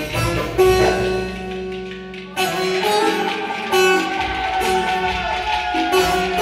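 Ankara-style Turkish folk dance music (oyun havası) with a plucked string lead over a drum beat. The music softens briefly, then comes back in sharply about two and a half seconds in.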